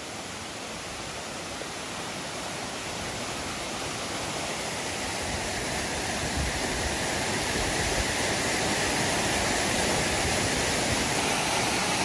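Waterfall cascading down a rock face into a pool: a steady rush of water that grows gradually louder.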